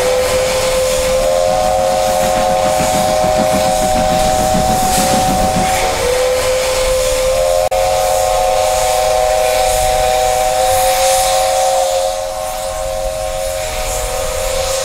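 Steam locomotive whistle sounding long, steady blasts as a chord of several notes, its lowest note held throughout while the upper notes drop out and come back about six seconds in and again near twelve seconds, over a steady hiss of steam.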